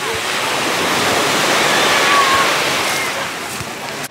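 Small sea waves washing onto a sandy shore: a steady rush of surf that swells about halfway through and eases off again.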